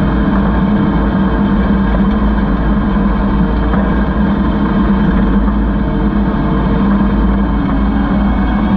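Kubota SVL75 skid steer's four-cylinder diesel engine running at a steady speed.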